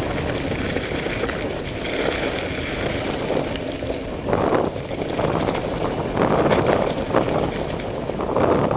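Wind buffeting the microphone while a bike runs fast down a rough, stony track, its tyres rumbling and the bike rattling over bumps. The jolting gets louder about halfway through and again near the end.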